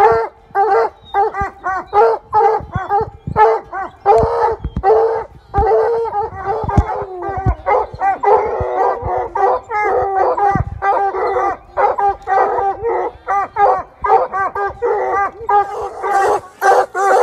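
Several hunting hounds barking treed at the foot of a tree, rapid overlapping barks at about two or three a second with no letup: the sign that they have the mountain lion bayed up the tree.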